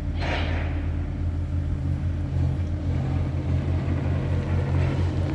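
Kubota excavator's diesel engine running steadily with a low, even drone.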